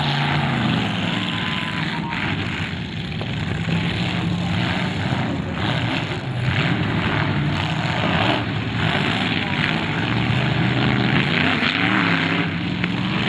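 Several demolition derby cars' engines running together in the arena, revving up and down again and again.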